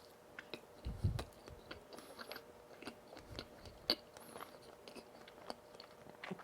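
Close-miked eating of donuts: chewing with scattered wet mouth clicks, a soft low thump about a second in, and a sharper click just before the four-second mark.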